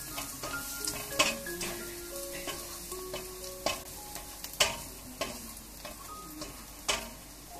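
Diced onion, ginger, garlic and turmeric sizzling in hot oil in a nonstick wok while a spatula stirs them, scraping and knocking against the pan at irregular intervals, roughly every half second to second.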